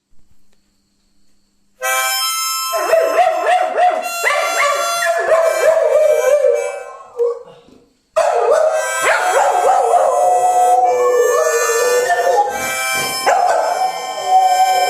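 Harmonica playing chords while dogs howl along to it, starting about two seconds in, with a short break just before the middle.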